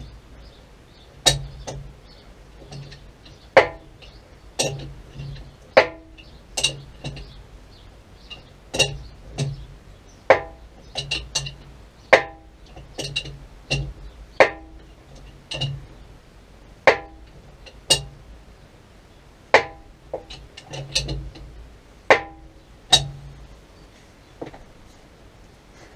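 Sharp metal knocks on a bore pump's head fittings as it is put back together, each with a brief ring. They come unevenly, about one a second.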